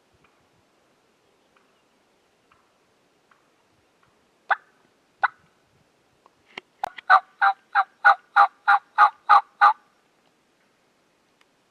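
Wild turkey yelping: two single notes about four and a half seconds in, then a run of about ten evenly spaced yelps at roughly four a second.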